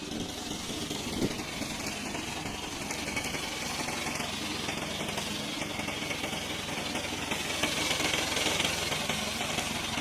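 Remote-control lawn mower's small engine running steadily, with a brief knock about a second in and a slightly louder stretch near the end.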